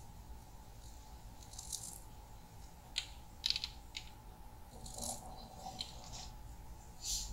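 Faint, scattered light clicks and taps, about a dozen spread over several seconds: a small knife slicing a garlic clove in the hand, the slices dropping into a metal baking pan.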